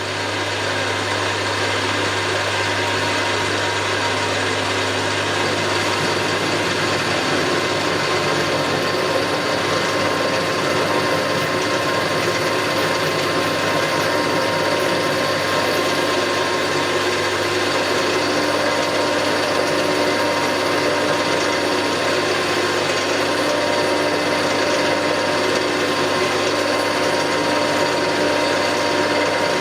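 Milling machine running steadily, its cutter at work on a valve test plate with a little lubricant on the job.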